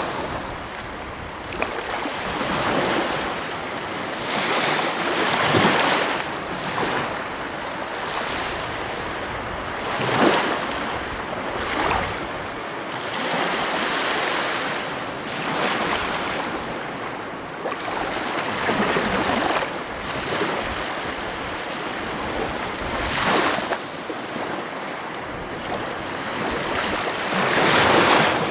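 Heavy ocean waves breaking on the coast: a continuous rushing wash that swells into a louder surge as each wave crashes, every few seconds.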